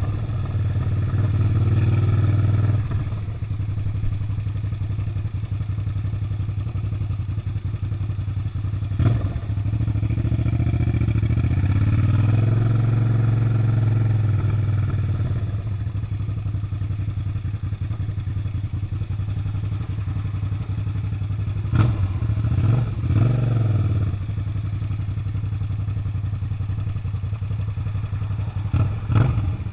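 Suzuki SV650's 90-degree V-twin engine running under way. The throttle opens and eases off in stretches, with short rising revs about nine seconds in, a few more between about twenty-two and twenty-four seconds, and again near the end.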